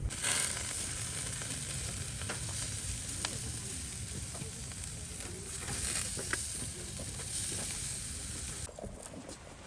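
Food sizzling in a hot pan: a steady frying hiss that starts suddenly and cuts off near the end.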